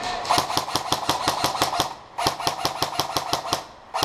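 Airsoft electric gun firing on full auto, about ten shots a second over the whine of its gearbox motor. Two bursts of about one and a half seconds each, then a short burst near the end.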